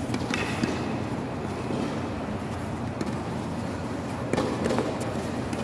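Tennis balls struck with rackets and bouncing on a hard court: a few sharp pops, one just after the start, one about three seconds in and a quick cluster near the end, over a steady low rumble of background noise.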